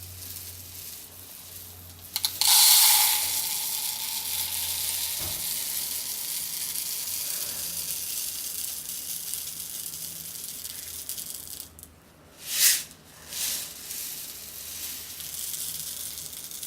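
Dry lye granules poured from a pouring container while being weighed out, with a hissing rattle that starts suddenly about two seconds in, runs steadily and tails off, followed by two short pours near the end.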